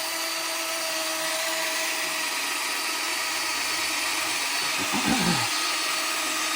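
Electric motor and gear drive of a broken 1:8 RC car whining steadily at constant throttle. The drivetrain is spinning without moving the car.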